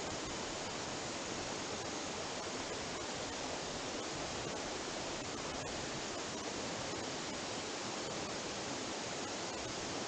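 Steady rushing of water from a waterfall and its rocky stream, an even, unbroken hiss.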